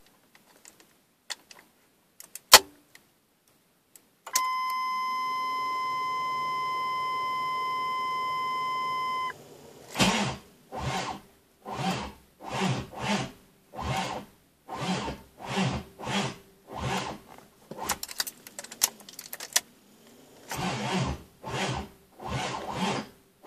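A few clicks, then a steady electronic warning tone for about five seconds that cuts off suddenly. Then the 1979 Corvette's starter cranks its 383 stroker V8 in slow, heavy pulses, a bit under two a second, for over ten seconds with a short break, without the engine catching: the warm hard-start that the owner puts down to timing, wiring or hardware.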